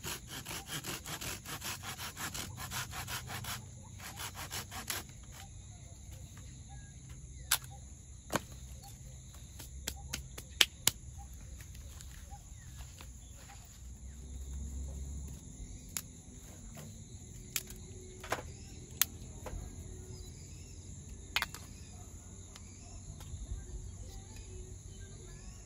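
A knife scraping quickly along a stick of dry wood in rapid strokes for a few seconds, then a shorter burst, followed by scattered sharp knocks of sticks as they are stacked in a small metal fire pit. Insects chirr steadily throughout.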